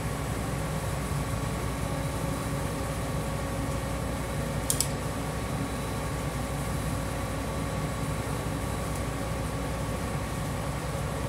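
Truck-mounted water well drilling rig running steadily, a constant engine rumble with a steady hum. One brief sharp click a little before halfway.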